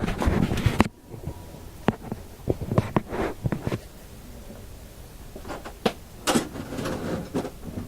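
Clicks and knocks of small objects being handled. They are dense for about the first second, stop abruptly, and give way to scattered light clicks and taps.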